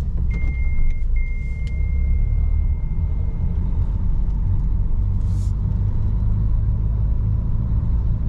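A car being driven: a steady low rumble of engine and road noise. A thin, steady high beep sounds over it for the first few seconds, with a short break in the middle.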